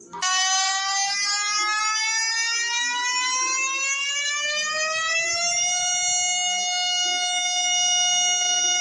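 Emergency alert siren: one tone with rich overtones that rises steadily in pitch for about five seconds, then holds a steady pitch.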